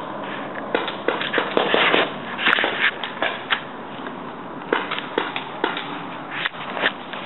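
Paintball markers firing, an irregular run of sharp pops, some in quick succession, over rustling brush and leaves.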